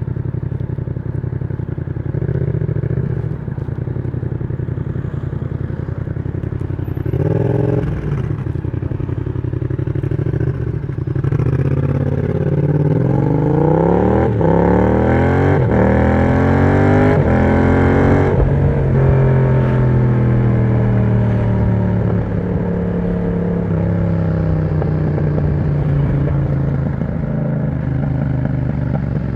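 Yamaha MT-07's 689 cc parallel-twin engine, breathing through an aftermarket exhaust with the dB killer removed, running steadily at low revs. About a third of the way in it accelerates hard, its pitch climbing in several steps broken by short gaps as it shifts up. The pitch then falls away as it slows and settles back to a steady run.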